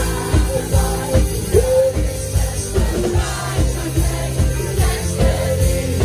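Live rock band playing, with drums keeping a steady beat under bass and guitar.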